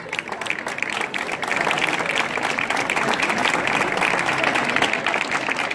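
Audience applauding: many hands clapping at once, growing louder about a second and a half in.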